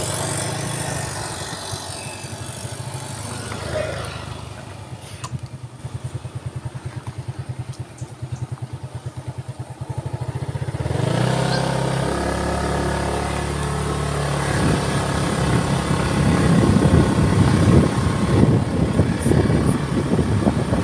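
A small vehicle engine running on the move, easing down to a low even putter for several seconds, then picking up again about eleven seconds in, with wind and road noise building toward the end.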